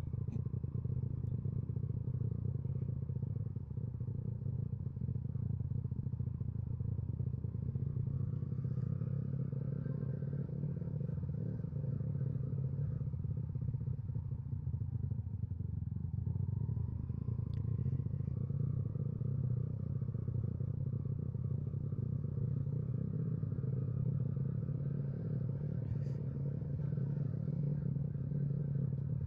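Motorcycle engine running steadily, its pitch rising a little about halfway through.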